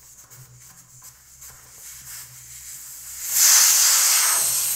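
Air hissing out of a fatbike inner tube through its valve as the tube is deflated, starting suddenly about three seconds in and staying loud, easing off only slightly. Before it, only faint handling at the rim.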